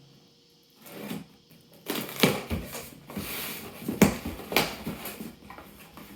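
A cardboard box being handled and opened: rustling and scraping of cardboard and packaging, with several sharp knocks and clicks from about two seconds in.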